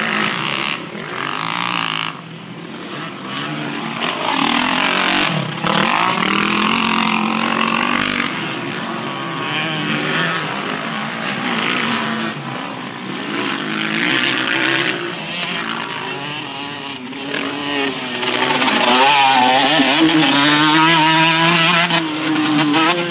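Motocross dirt bikes revving on the track, their engine pitch rising and falling over and over. The engines are loudest near the end, as bikes ride closer.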